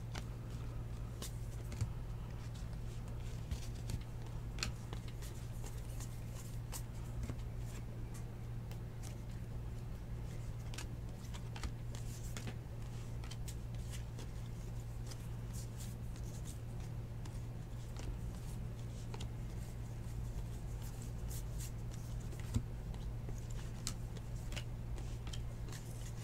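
Baseball trading cards being flipped through by hand, with faint, scattered clicks and slides of card stock over a steady low hum.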